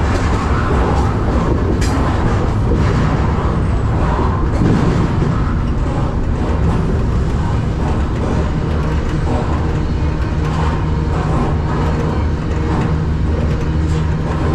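BNSF freight train rolling along, heard from aboard: a loud, steady rumble of wheels on rail and rattling cars over a steady low drone.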